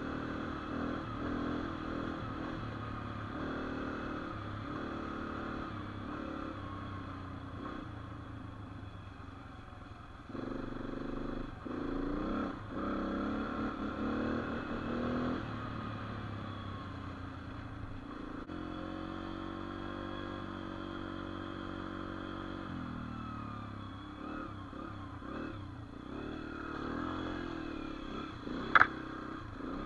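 Dirt bike engine running as it is ridden, revving up and dropping back through gear changes, with a louder burst of throttle about a third of the way in and a steadier stretch a little past the middle. A single sharp click near the end is the loudest sound.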